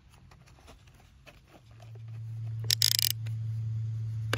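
Small handheld electric screwdriver starting up about one and a half seconds in and running with a steady low hum as it drives a blade screw back into a robotic lawnmower's blade disc. A short scratchy rasp comes about three seconds in and a few sharp clicks near the end, with light handling clicks before the motor starts.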